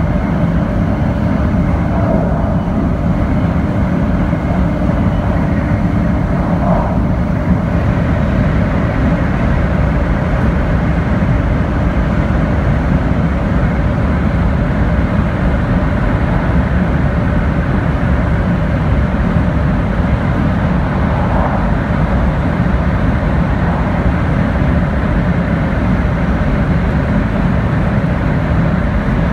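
Steady interior running noise inside the passenger cabin of an N700 series Shinkansen: a constant low rumble with an even rushing noise over it.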